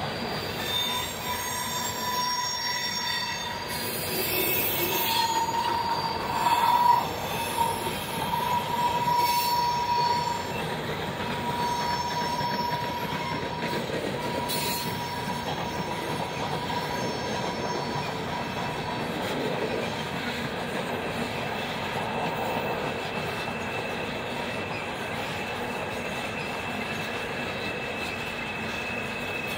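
Empty coal hopper cars of a Norfolk Southern freight rolling past, with steady wheel-on-rail noise. Wheels squeal in a high, sustained tone through the first ten seconds, loudest around seven seconds in. A fainter, higher squeal returns in the second half.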